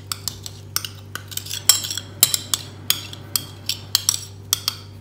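A utensil clinking and tapping against a glass measuring cup while scraping mayonnaise out into a glass mixing bowl: an irregular run of sharp little clinks, about three a second.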